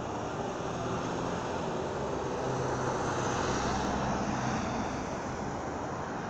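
Steady rumble of vehicle noise, with a low engine hum that swells about two and a half seconds in and fades near the end, as of a vehicle passing.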